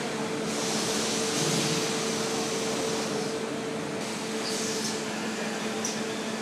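Foundry machinery running with a steady hum, with a rushing hiss for a couple of seconds near the start and a few light clicks later on.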